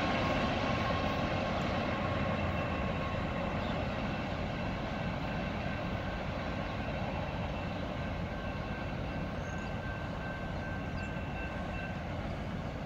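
Freight train rolling past: a steady rumble of the cars on the rails, with a few faint steady high tones, slowly fading as it moves away.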